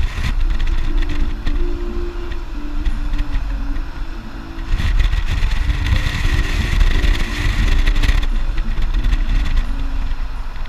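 Low rumble of vehicle and wind noise from a camera moving along a street, with music playing underneath; a hissing noise swells in from about five seconds in and fades about three seconds later.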